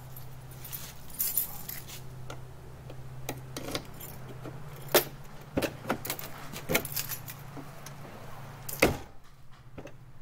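New exterior door handle on a 1999–2007 Chevy truck being pulled and released several times, its latch and linkage clicking and rattling, with a heavier knock near the end. A steady low hum runs underneath and stops at that knock.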